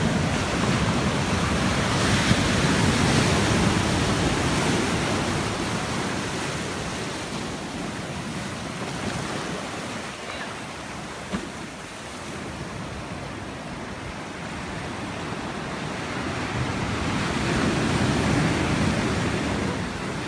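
Ocean surf washing in over rocks and sand. The rush swells twice, near the start and again near the end, as waves come in and drain back.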